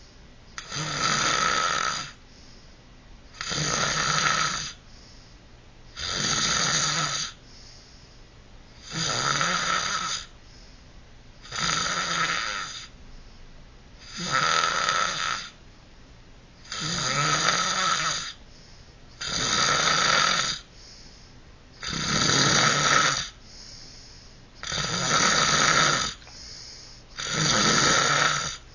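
Loud, rasping snoring in a steady rhythm: about eleven long snores, one roughly every two and a half seconds, with quiet breaths between them.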